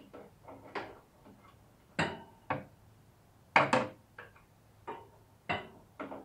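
Irregular knocks and clatters of things being handled on a workbench, about ten separate hits at uneven spacing, the loudest clatter about three and a half seconds in.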